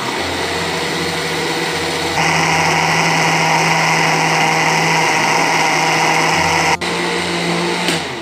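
Mixer grinder motor running with its small jar full of eggs and oil, emulsifying them into mayonnaise. It gets louder about two seconds in, cuts out for an instant near seven seconds, and stops just before the end.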